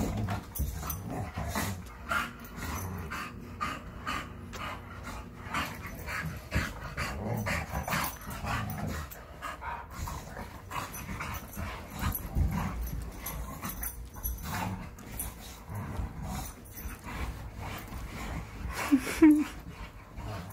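Two dogs, a bulldog and a Rottweiler, play-fighting: growling with continual scuffling and bumping of bodies and paws. One short, loud cry from a dog near the end.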